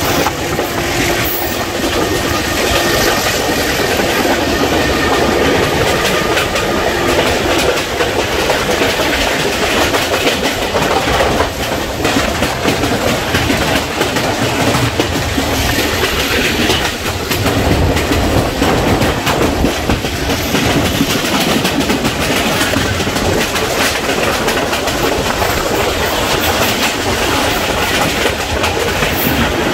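Passenger train running along the track, its wheels clattering over the rail joints in a steady clickety-clack over a continuous loud running noise.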